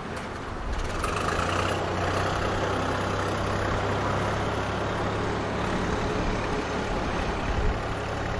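Shunting tractor's engine running steadily as it drives along the rail track. The engine gets louder about a second in.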